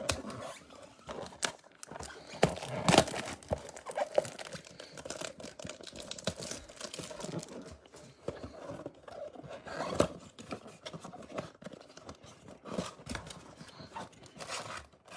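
Plastic wrap crinkling and tearing as a Bowman Platinum blaster box is opened, with the cardboard box and packs handled: irregular crackles, rustles and small taps.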